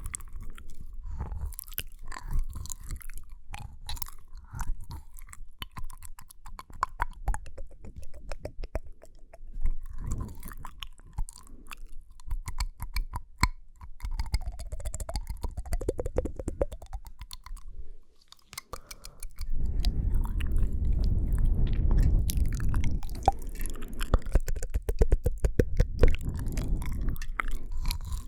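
ASMR mouth sounds made close to the microphone: a dense run of sharp mouth clicks and smacks, growing louder and denser about two-thirds of the way through.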